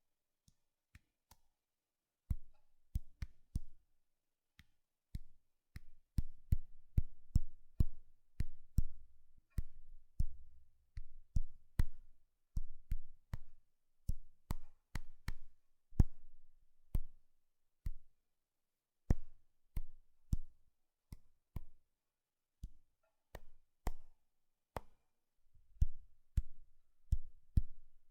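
Fingertips tapping on an iPhone's glass screen: quick, irregular taps, each a sharp click with a dull thump under it. They are sparse for the first few seconds, then come in runs of several a second with short pauses between.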